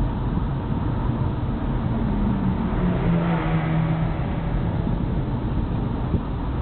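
Car engine and road noise heard from inside a moving car. The engine note drops a little in pitch about two to three seconds in.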